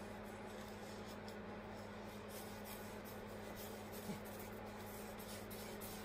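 Yarn being wound around the fingers to make a pom-pom, faint repeated soft swishes over a steady low hum, with a small click about four seconds in.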